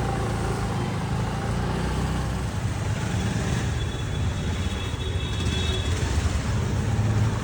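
Motorcycle being ridden on the road, its engine running at a steady note under road and wind noise.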